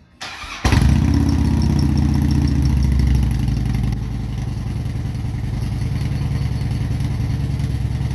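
Harley-Davidson V-twin motorcycle engine cranked by its electric starter, catching after about half a second and running at a fast idle that settles slightly near 4 s. A clicking like metal hitting is said to come from it, a faked knock staged as a prank.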